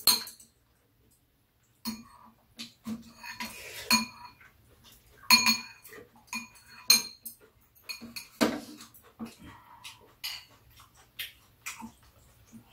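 Metal spoons and chopsticks clinking and scraping against bowls while eating, in many short, irregular clinks, several of them ringing briefly.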